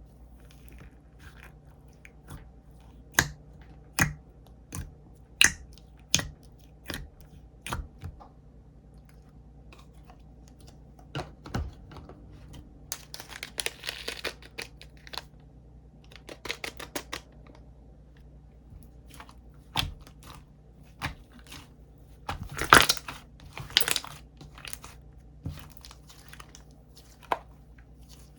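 Slime being pressed and stretched by hand, with sharp clicking pops about once a second at first, then bursts of crackly squishing.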